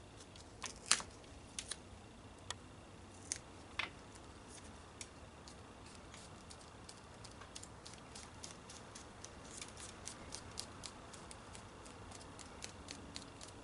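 Faint clicks and crackles of black duct tape being handled and pressed along the edge of a window screen's mesh. A few sharp ticks come in the first few seconds, then a quicker run of small ticks in the second half.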